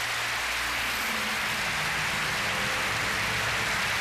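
Studio audience applauding steadily, with a faint low hum underneath.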